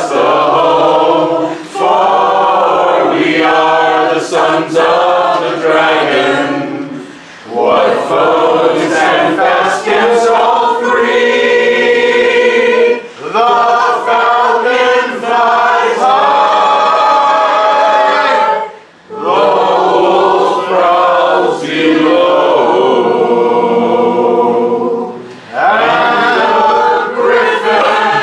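A group of voices singing a song together a cappella, led by a man. The phrases run about six seconds each, with short breath pauses between them.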